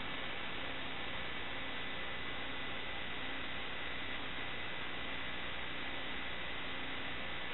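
Steady static hiss with a faint hum and a thin high steady tone, unchanging throughout, typical of the audio track of an analog FPV video downlink.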